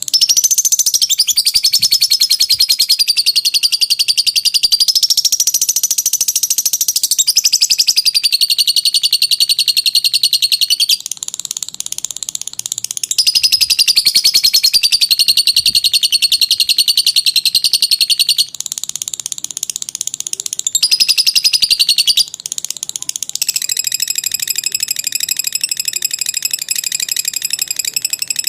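Lovebird's long, unbroken chattering song (ngekek): a rapid, high-pitched trill that runs for several seconds at a stretch. The pitch wavers up and down, with short breaks at about 11, 18 and 22 seconds.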